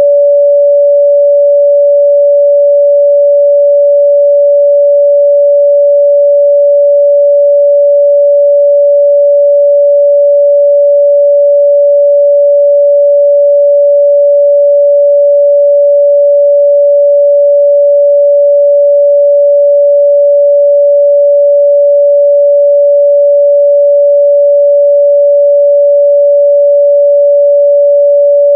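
A pure 574 Hz sine-wave test tone, held steady and loud at one unchanging pitch.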